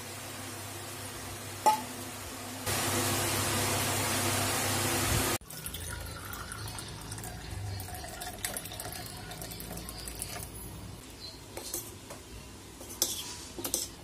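Milk being poured, first into a plastic bottle and then into a glass cup, with a loud steady rush of running liquid for about three seconds that cuts off suddenly. A few light clinks of glass near the end.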